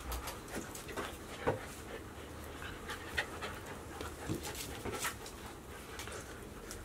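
Golden retriever puppies panting while they wrestle and scramble in play, with many short clicks and scuffles from paws and claws on a hard floor. The sharpest clicks come about a second and a half and about three seconds in.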